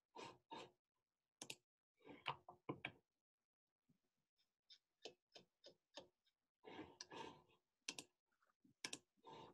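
Faint typing on a computer keyboard: irregular runs of quick keystroke clicks with short gaps between them.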